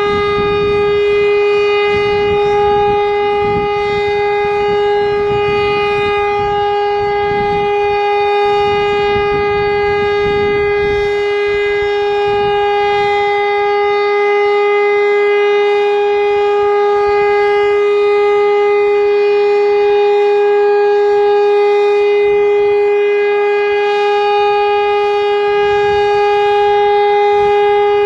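Elektror L141 electro-mechanical air-raid siren sounding one loud, steady tone held at a single pitch, rich in overtones: the continuous tone of a siren test.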